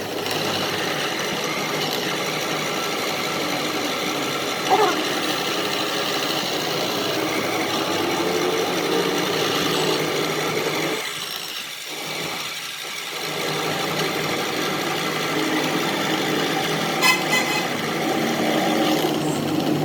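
A machine running steadily with an even pitched hum, dropping away briefly near the middle before coming back up, with a few short clicks.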